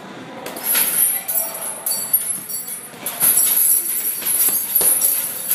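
Gloved punches thudding into a hanging heavy bag, several blows a second or so apart, with the bag's suspension chain jingling and rattling as it swings.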